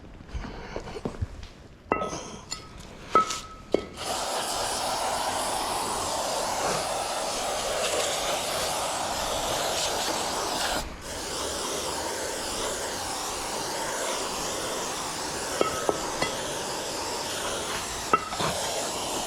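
A few metal clinks and knocks, then aerosol parts cleaner sprayed in a steady hiss for about fifteen seconds, with a brief break about eleven seconds in.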